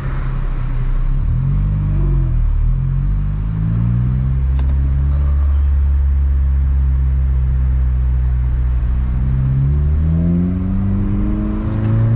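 Honda Civic Si's 2.4-litre four-cylinder engine running under way, driven through a manual gearbox. The revs rise and fall in the first few seconds, hold steady for several seconds, then climb again with a brief dip near the end.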